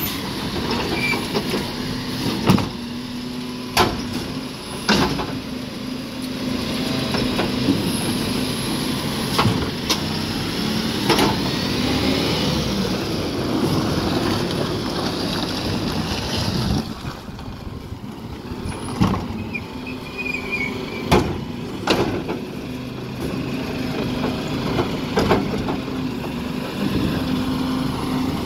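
Side-loading garbage truck's diesel engine running as it pulls up and stands at the kerb, with a dozen or so sharp knocks and clunks from the truck and its bin-lifting arm. A whine rises in pitch about halfway through, and the engine gets quieter soon after.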